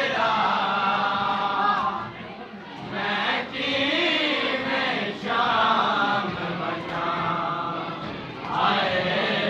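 A group of men chanting a noha, a Shia mourning lament, in unison, in sung phrases of a second or two with short breaks between them.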